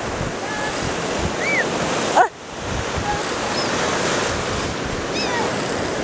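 Ocean surf washing onto the beach with wind on the microphone, steady throughout. A few short high-pitched calls cut through it, the loudest a quick rising squeal a little past two seconds in.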